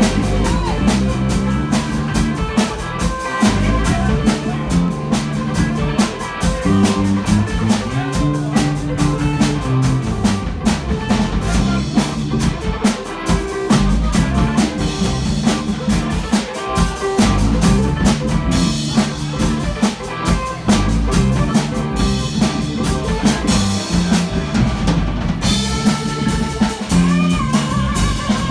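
Rock band playing live on drum kit and guitar, with steady drum hits throughout.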